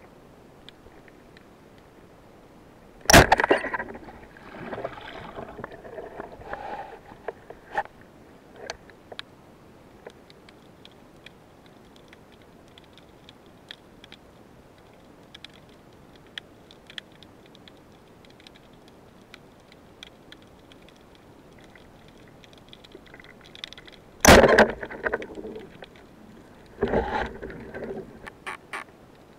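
Underwater knocks and clatter from a speargun and the diver's gear. There are two sharp, loud knocks, each followed by a second or two of clattering and scraping, the first a few seconds in and the second about twenty seconds later. Faint clicks come in between, and a run of short knocks follows near the end as a gloved hand handles the gun.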